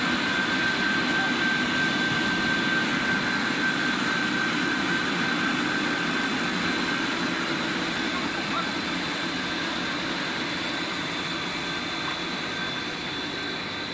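Steady machine noise of a running PVC roof-tile extrusion line, its motors and blowers running continuously with a few constant high tones over the noise. The sound grows a little quieter toward the end.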